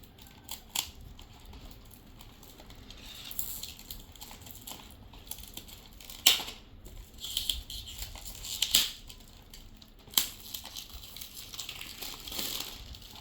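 Cardboard box and plastic packaging being opened by hand: crinkling and tearing rustles with several sharp clicks and snaps.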